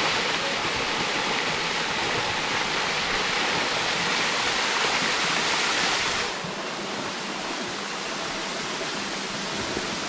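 Small waterfall cascading in thin streams over rock ledges into a pool: a steady rush of falling water that drops to a lower, still steady level about six seconds in.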